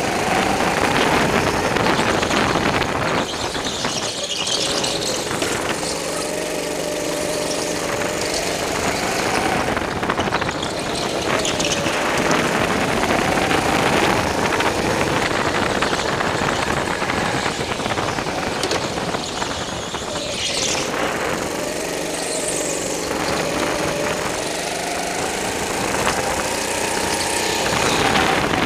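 Rental go-kart engine running hard, heard from the driver's seat, its pitch rising on the straights and dropping into the corners, with tyres briefly squealing in several turns.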